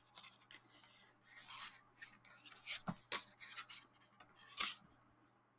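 Paper pages of a diary being turned and handled: soft rustles with a few sharper flicks, the loudest about three seconds in and another near the end.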